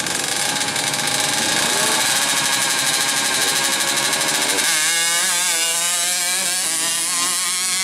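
A grasstrack dirt bike's Kawasaki Ninja 150 two-stroke engine running through its expansion-chamber exhaust, held at fairly steady revs. About halfway through, the pitch starts rising and falling with the throttle as the bike rides off.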